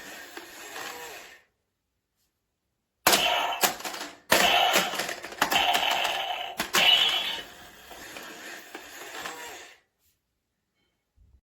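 Electronic Nerf target playing its sound effects through a small speaker: a run of loud, noisy bursts, each starting with a sharp click, stopping abruptly a couple of seconds before the end.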